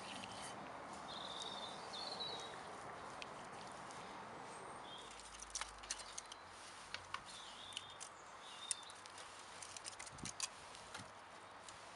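Light clicks and taps of split wooden kindling sticks being laid onto dry straw and foil in a brick fire pit, scattered through the second half, with faint birds chirping now and then in the open air.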